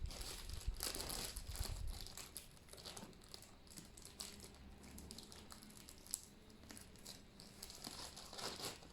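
Packaging crinkling and rustling with small irregular clicks as a clutch kit is handled and unwrapped by hand, busiest in the first couple of seconds.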